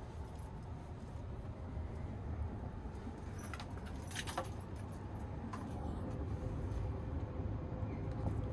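Low steady rumble of the Sunrise Izumo sleeper train (a JR 285 series electric train) running, heard inside the carriage. A few light clicks and rattles come about halfway through.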